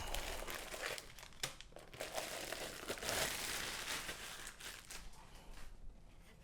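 Packaging crinkling and rustling as it is handled, in uneven bursts, loudest in the first second and from about two to four seconds in, then trailing off.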